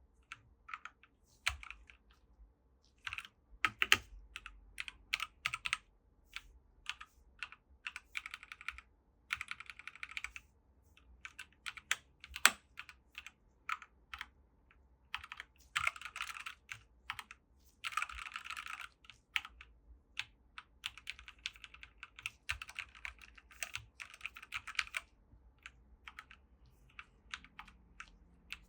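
Dierya DK98SE mechanical keyboard with red (linear) switches being typed on: separate key presses mixed with quick runs of keystrokes.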